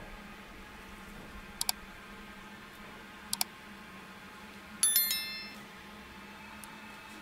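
Subscribe-button animation sound effects: a quick mouse double-click about one and a half seconds in and another about three and a half seconds in, then a short bright notification-bell chime about five seconds in, over a faint steady hum.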